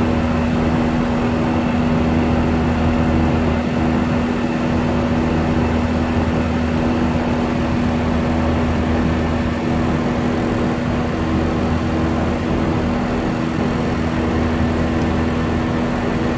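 Steady drone of an Airbus airliner in flight, heard inside the cockpit, with a constant low hum running under it.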